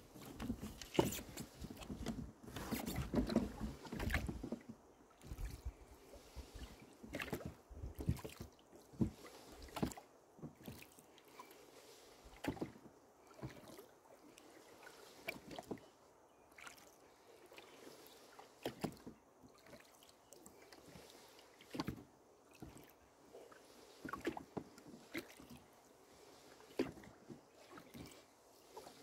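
Rowboat under oars: the oars knock in their oarlocks and the blades dip and splash, in uneven strokes every second or two, with a low rumble over the first few seconds.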